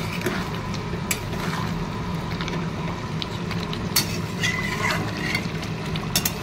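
A metal spatula stirring and scraping through ol (elephant foot yam) and hilsa fish-head curry in a kadai, with three sharp clinks against the pan, about one, four and six seconds in, over a steady low hum.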